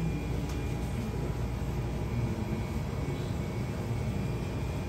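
Steady low machine hum and rumble with a few faint constant tones above it, unchanging throughout.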